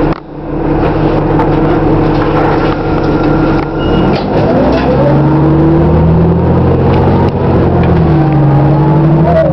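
City transit bus engine and drivetrain heard from inside the moving bus: a steady drone, joined from about five seconds in by a whine that rises in pitch.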